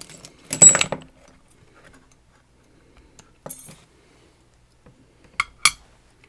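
Small metal lock parts and tools being handled: a loud clattering rummage about half a second in, a brief scrape in the middle, and two sharp ringing metal clinks near the end.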